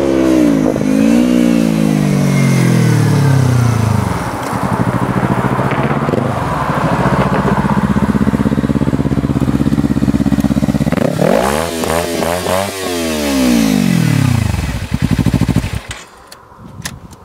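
Sport motorcycle engines passing at speed. The engine pitch falls away as one bike goes by, another holds a steady note for a few seconds, then a bike sweeps past with its pitch swinging up and down and fades out about three-quarters of the way through. A few sharp clicks follow near the end.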